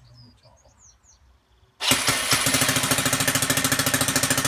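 NGH 38cc single-cylinder four-stroke petrol model-aircraft engine, turned over by its electric autostart system, starts suddenly about two seconds in and keeps running steadily with an even, rapid pulsing beat.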